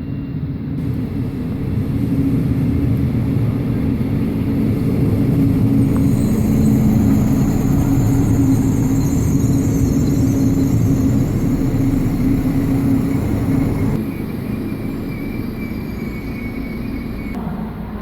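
Regional train pulling into the station platform: a steady low rumble that swells to its loudest midway and eases off after about fourteen seconds. High hissing and squealing ride on top, and a thin high squeal is heard near the end as it slows.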